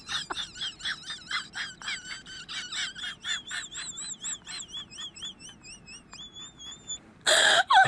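High warbling whistle-like tones, pulsing about four times a second, ending in a short rising held note; near the end comes a brief loud burst.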